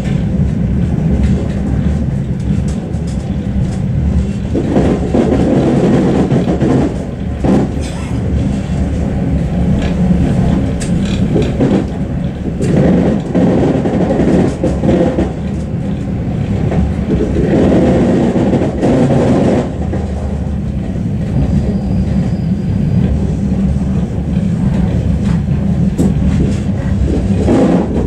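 Suburban passenger train running, heard from inside the carriage: a steady low rumble of wheels on rails that swells and eases several times, with a few sharp clicks.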